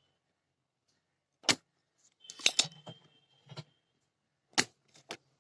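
A few separate sharp metallic clicks and clinks of tools being handled on an amplifier board, with a cluster of them in the middle leaving a faint, brief ring.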